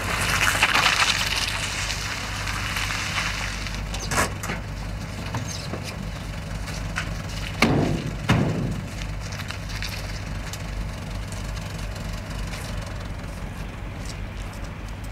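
A van drawing up with a rush of tyre and engine noise, then two heavy slams about a second apart near the middle as its doors are shut. A steady low hum runs underneath.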